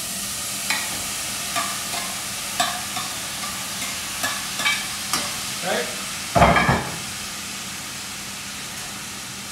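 Diced vegetables sizzling in a saucepan on a gas hob, with a spoon knocking against the pan about once a second as they are stirred. A louder thump comes a little after six seconds in, then the knocking stops and only the steady sizzle goes on.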